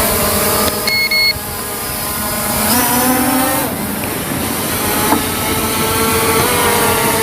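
Quadcopter drone (SG906 MAX1) motors and propellers buzzing, the pitch shifting and rising as the motors change speed, with a short double beep about a second in.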